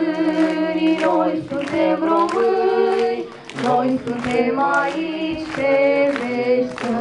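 A group of voices singing a song together in held, slow notes, with short breaks between phrases.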